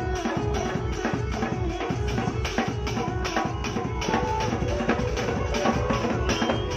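Dance music with a fast, steady drum beat, about four beats a second.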